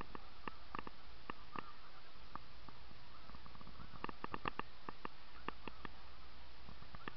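Snow geese calling: short, high yelping notes, scattered at first and then coming thick in a cluster about four seconds in, over a steady hiss.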